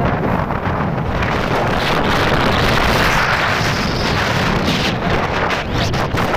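Heavy wind buffeting the microphone of a moving motorbike, a loud, steady rush that swells slightly midway.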